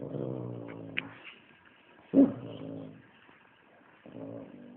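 A pet animal making three low, drawn-out calls, each about a second long with slowly falling pitch. The second call is the loudest and starts abruptly.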